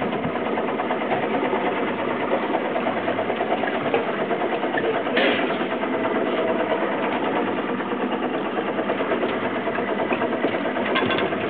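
Boat engine idling steadily, with a fast, even mechanical chatter.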